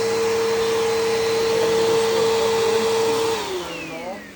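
Upright vacuum cleaner running with a steady motor whine, then switched off about three-quarters of the way through, its motor winding down with a falling pitch.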